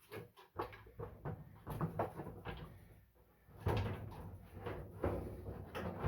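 Clunks and knocks of sheet-metal dryer parts being handled and set in place during reassembly of the dryer drum and cabinet, with one heavier clunk a little past halfway.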